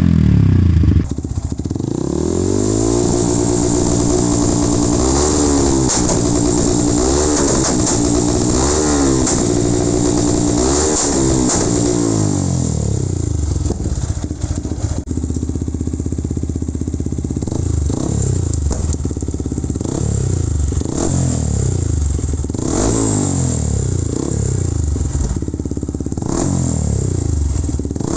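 Motorcycle fitted with an MSH aftermarket exhaust being revved in place. It holds several higher revs, then gives quick repeated throttle blips, each rising and falling back.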